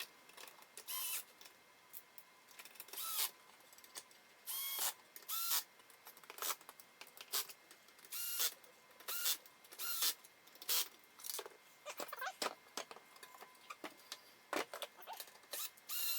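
Power drill with an Allen hex bit driving furniture bolts in a rapid series of short bursts, each with a brief rising whine as the motor spins up.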